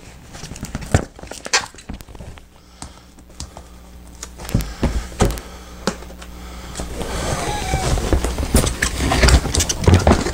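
Stiff drawer panels of a car-hauler bag being folded and pressed into place by hand: scattered light knocks and taps, then denser rubbing and scraping from about seven seconds in, over a steady low hum.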